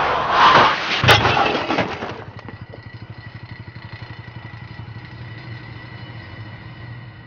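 A car skidding with loud tyre noise, ending in a sharp impact about a second in. It then drops to a low steady hum with a thin high ringing tone.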